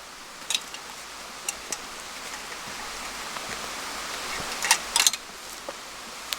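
Rain falling in the woods: a steady hiss with scattered sharp drop ticks, several of them bunched together about five seconds in.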